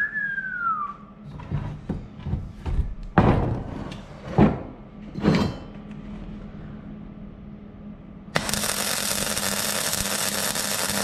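A short squeak falling in pitch, then a run of knocks from steel tube and tools being handled on the bench. About eight seconds in, a MIG welder's arc strikes and runs as a steady hiss, welding the steel tube joint.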